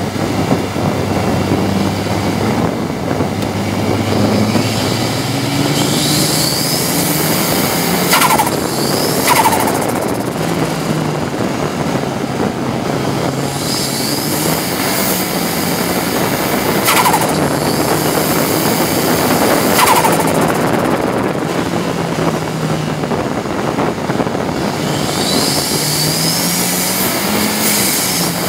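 Ford Sierra RS Cosworth race car at racing speed, heard from inside the cabin: its turbocharged four-cylinder engine revs up and drops back again and again through the gears. A high rising whistle comes with each pull, and there are four sharp cracks.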